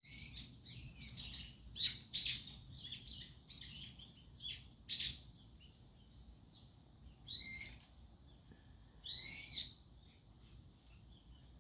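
Birds chirping and calling: a busy run of short, high chirps for the first five seconds, then two longer sweeping calls about two seconds apart.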